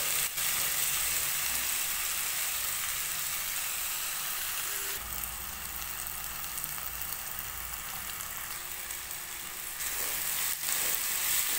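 Chopped onions and tomatoes sizzling steadily in hot mustard oil in a non-stick kadai, being stirred with a wooden spatula.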